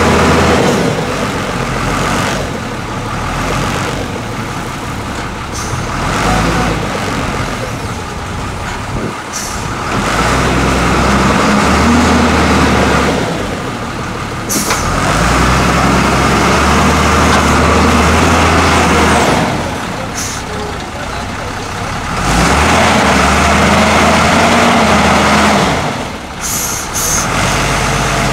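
XCMG LW300FN wheel loader's diesel engine working under load, revving up for several seconds at a time three times and dropping back between as the loader works its bucket and moves. A few short hisses cut in between the revs.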